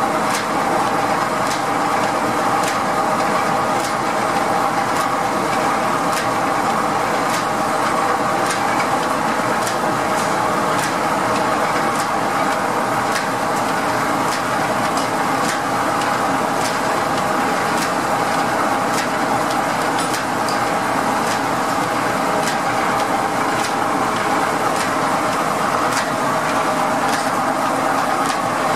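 Steam-driven sawmill machinery running steadily: the large circular saw blade and its belt-and-pulley drive turning, a continuous mechanical hum with a regular light click about once a second.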